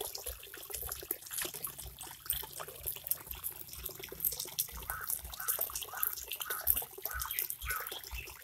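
Light splashing and trickling of shallow water at a bank, with many small, irregular crackles.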